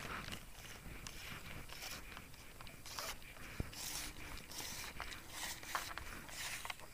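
Fishing rod and line being handled close to the microphone: irregular scratchy rustles and scrapes, with a light knock about halfway.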